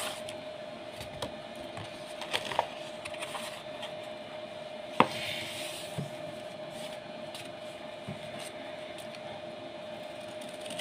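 Sheets of paper and card being shifted and handled on a cloth-covered table: soft rustling and light taps, with one sharp click about five seconds in, over a steady hum.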